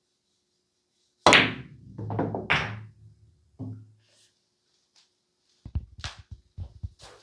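A 9-ball break: a sharp crack as the cue ball hits the rack about a second in, then the balls clacking together and thudding off the cushions. Another knock follows, and near the end comes a quick run of lighter knocks.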